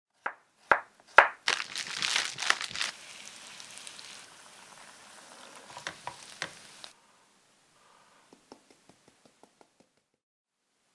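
Three sharp knocks in the first second or so, then potato slices frying in oil in a pan: a loud crackling sizzle that settles into a steadier, quieter sizzle with a few clicks of a spatula. Near the end, a short run of faint light ticks.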